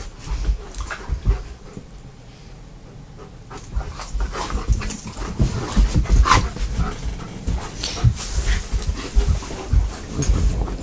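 A dog right at the phone, with irregular clicks, knocks and rubbing as it moves about; the sounds become busier and louder from about four seconds in.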